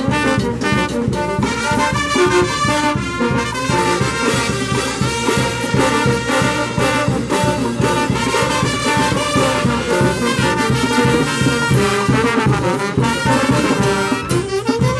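Live Peruvian banda orquesta playing a rhythmic tune: trombones, trumpets, saxophones, a clarinet, a sousaphone and baritone horns over a drum kit with cymbals.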